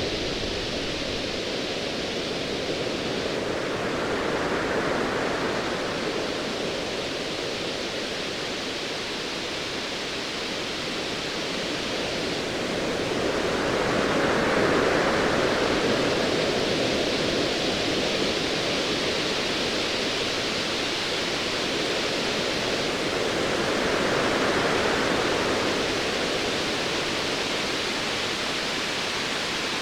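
Sea waves: a steady rushing wash that swells and eases about every ten seconds, three times.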